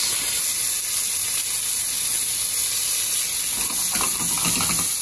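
Plaice fillets sizzling in olive oil in a hot frying pan after being flipped: a steady, even hiss.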